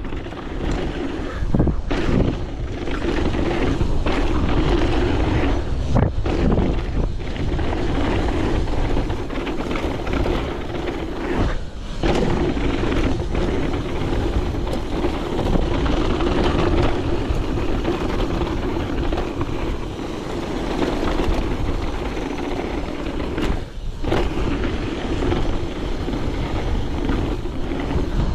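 2023 Evil Wreckoning mountain bike riding fast down a dirt trail: knobby tyres rolling over packed dirt and loose gravel, the bike rattling, with wind buffeting the action camera's microphone. The steady noise dips briefly a few times.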